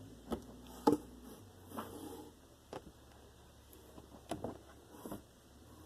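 A boxed model horse being handled: scattered light taps and clicks of the cardboard and plastic packaging, about six in all, the loudest about a second in.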